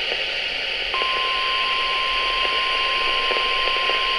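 NOAA Weather Radio broadcast: static hiss, then about a second in the 1050 Hz warning alarm tone starts, one steady high tone. It signals that a new weather warning is about to be read.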